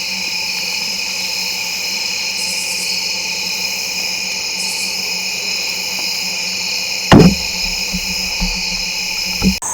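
Steady chorus of crickets, with a sharp loud knock about seven seconds in, a few softer knocks after it, and another knock near the end.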